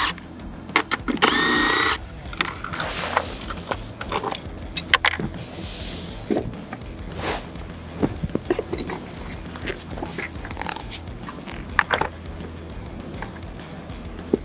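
Cordless drill/driver whirring in one short burst about a second in, running a motorcycle seat bolt. After it come scattered clicks and knocks of the seat and parts being handled.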